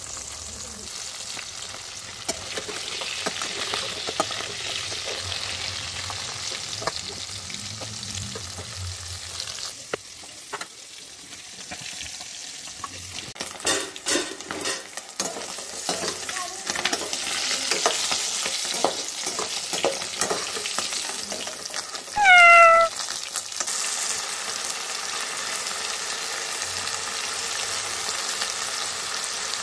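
Pieces of climbing perch (ukabi) sizzling as they fry in hot oil in a wok, with a steady hiss; through the middle, a utensil clicks and scrapes against the wok as they are stirred. About two-thirds of the way in, one short high cry falling in pitch is the loudest sound, and near the end potatoes and onions sizzle in the oil.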